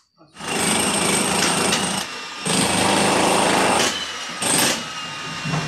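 Handheld electric power tool worked against a concrete column, running in several bursts of a second or so with a steady high motor whine.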